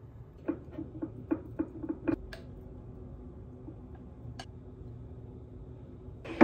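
Kitchen utensils tapping on dishware: a quick, uneven run of about eight light clicks with a short ring, one more click a little later, and a louder clack at the very end.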